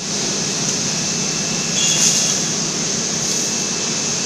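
Steady hiss and hum of industrial machinery in a steel-beam welding line. A brief faint high whine and a slight swell come about two seconds in.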